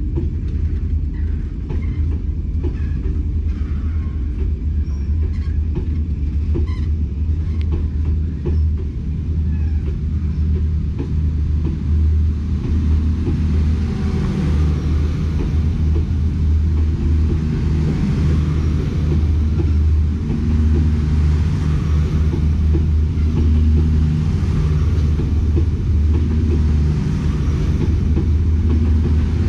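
Class S13A diesel multiple unit pulling out and running past close by: a steady, loud low rumble, with sharp clicks in the first part, growing louder and fuller about halfway through as it gathers speed.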